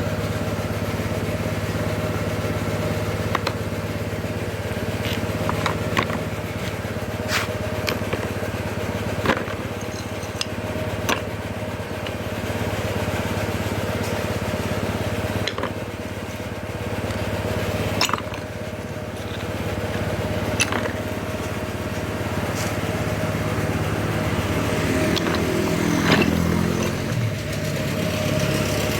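Homemade stone crusher built from scrap iron running with a steady motor hum. Irregular sharp cracks and knocks sound over it as stones are broken.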